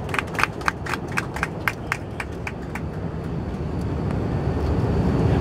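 Airbus A350-900 cabin at takeoff: a quick run of thumps, about four a second, from the landing gear rolling over the runway, fading and stopping about three seconds in as the wheels leave the ground. Under them is the steady low rumble of the Rolls-Royce Trent XWB engines at takeoff power, which grows louder toward the end.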